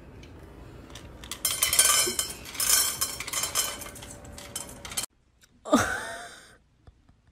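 A clatter of hard objects clinking and knocking, with some ringing tones, for a few seconds. After an abrupt cut comes one short, voiced cry that bends in pitch.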